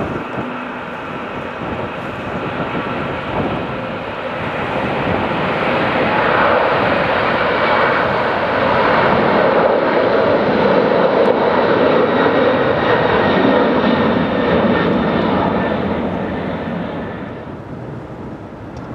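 Boeing 747-400's four jet engines at takeoff power: a steady loud rush with a faint whine that swells as the airliner passes, then fades away near the end.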